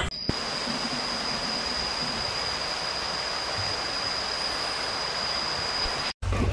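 Steady, even rushing noise with a thin high whistle-like tone held along it; it cuts off abruptly near the end.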